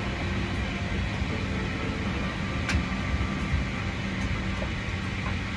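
Boeing 777-300ER's GE90 turbofan engines running steadily at taxi power, heard from inside the cabin as an even hum and rush with a low steady tone, along with cabin air. A single faint click comes a little before the middle.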